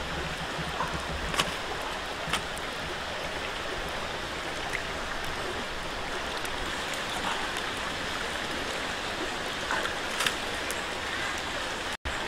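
Steady rushing of a shallow rocky stream, with a few faint clicks over the top.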